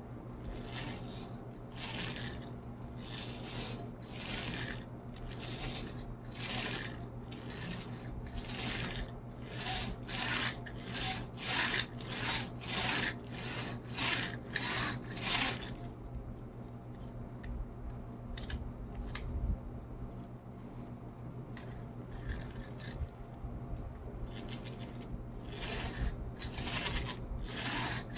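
Toy truck pushed back and forth, its wheels rubbing and scraping over a surface in repeated strokes, roughly one every two-thirds of a second. The strokes stop about halfway through, leaving a few clicks, and start again near the end. A steady low hum runs underneath.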